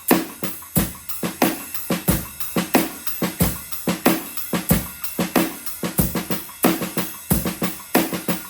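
Drum kit played in a steady rock groove: kick drum and accented snare backbeats, with quieter ghost notes on the snare between them, under a continuous cymbal wash.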